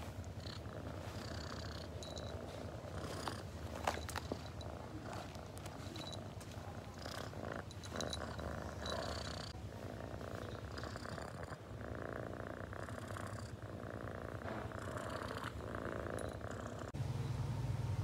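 Calico cat purring steadily, held close against the body. The purr cuts off abruptly near the end.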